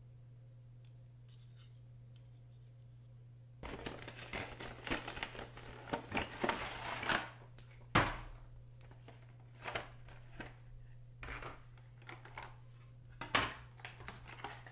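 Stiff clear plastic blister packaging handled and pried open, crinkling with sharp plastic clicks and snaps, starting about four seconds in. The loudest snap comes about eight seconds in.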